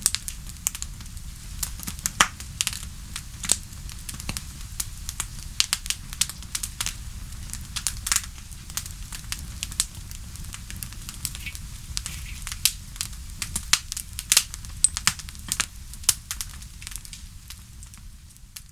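Wood fire crackling: irregular sharp pops and snaps, several a second, over a low steady rumble of the burning fire, fading out near the end.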